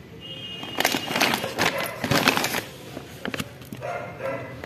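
Plastic snack packet crinkling and rustling as it is handled, in short crackly bursts, with a brief pitched call in the background about four seconds in.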